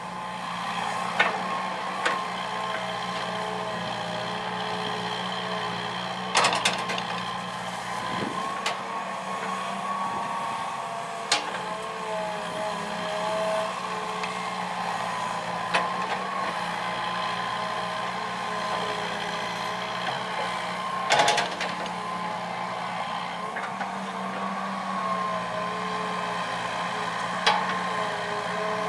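Hitachi EX120 hydraulic excavator's diesel engine running under load, with a steady hydraulic whine that wavers a little in pitch as the boom, arm and bucket work the soil. Several sharp metallic clanks come through, the loudest about six and twenty-one seconds in.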